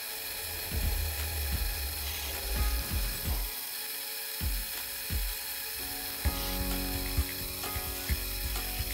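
Milling machine running with an edge finder turning in its spindle, while the table is moved to bring the finder against each edge of a tool-steel block; machine noise with irregular knocks and a few sharp clicks in the second half.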